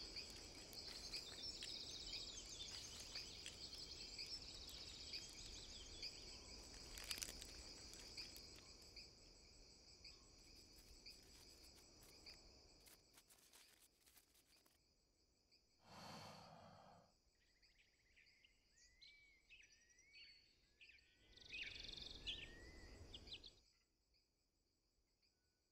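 Faint jungle night ambience: a steady high insect trill with scattered clicks, which drops away about halfway through. After that come short rising bird-like chirps and two brief bursts of noise.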